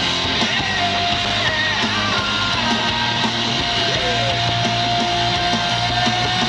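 Rock music with guitar at a steady, even loudness.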